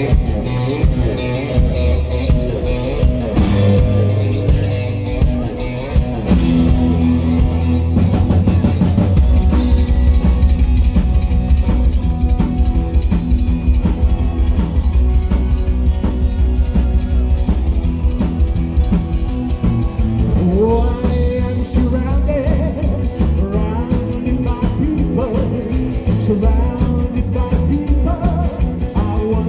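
Live rockabilly band playing: upright double bass, electric guitar and drum kit. The drums and cymbals come in about eight seconds in, and a voice starts singing a little after twenty seconds.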